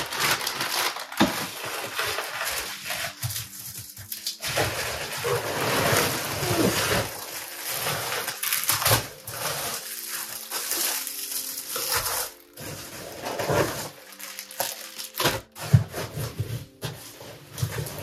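Bubble wrap and plastic packaging crinkling and rustling as a cardboard box is unpacked by hand, with irregular crackles and a few sharper handling knocks, the sharpest about fifteen seconds in.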